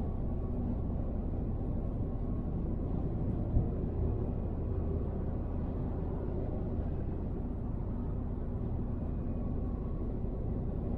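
Steady low road and engine rumble of a car driving at motorway speed, heard from inside the car, with a single brief knock about three and a half seconds in.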